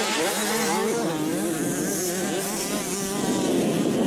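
Small 65cc two-stroke motocross bikes revving hard, their engine pitch rising and falling with the throttle.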